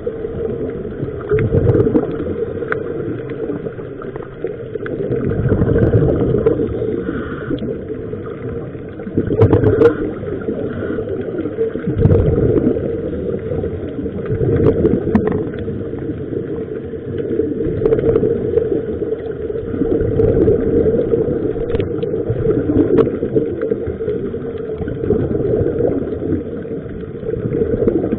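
Muffled underwater sound from a camera housing: scuba divers' regulator bubbles gurgling, swelling and fading every few seconds over a steady low hum.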